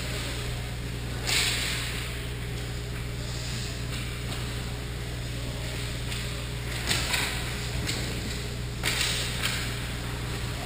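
Hockey skate blades scraping the ice in short hissing cuts, about a second in and again around seven and nine seconds, over a steady low hum.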